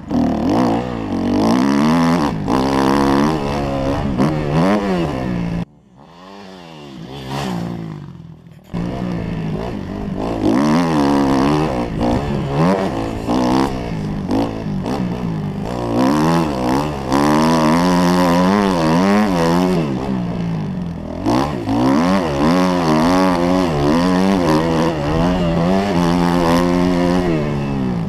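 Kawasaki KX 250F four-stroke single-cylinder motocross engine being ridden hard, revving up and dropping back again and again as the throttle is worked. About six seconds in the throttle shuts off and the engine falls to a low, quiet sound for nearly three seconds before it picks up again.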